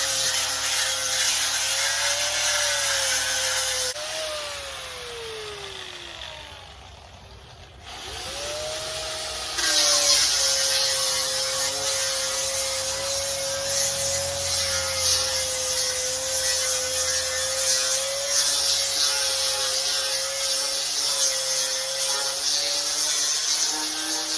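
Disc grinder with a 24-grit sanding disc sanding an oak stump, its motor whining steadily over a coarse grinding hiss. About four seconds in it is let off and winds down, falling in pitch, then near eight seconds it spins back up and sands steadily again.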